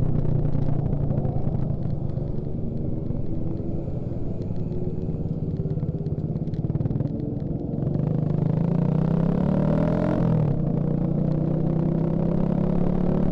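Suzuki Shogun Axelo R motorcycle's engine running under way. It runs steadily and a little quieter for a few seconds, then rises in pitch as it accelerates, drops briefly about ten seconds in, and holds a steady note after.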